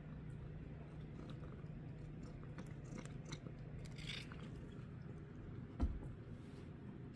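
Tabby cat licking creamy puree treat from a squeeze tube, making faint repeated small clicks of mouth and tongue. Near the end there is a single thump.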